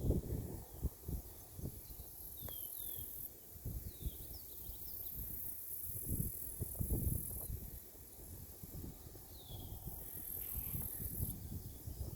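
Summer floodplain ambience: insects buzz high in stretches of two to three seconds, with pauses between. Birds give short downslurred calls several times, and a low gusty rumble, the loudest sound, comes and goes underneath.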